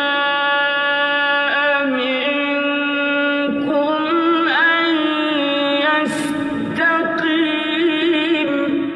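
A male Quran reciter's solo voice chanting in the melodic recitation style, holding long drawn-out notes on the end of a verse with small wavering turns and ornaments in the pitch.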